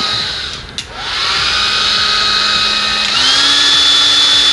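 Hand-held blow dryer running: it dips out with a click a little under a second in, spins back up with a rising whine, then steps up to a higher pitch and louder airflow about three seconds in as it goes to its high setting.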